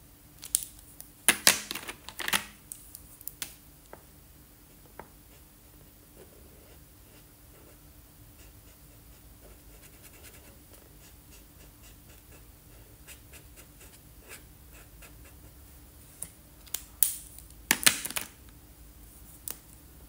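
Felt-tip marker rubbing faintly on paper while colouring in, with clusters of loud sharp plastic clicks about a second in and again near the end as marker caps come off and go back on.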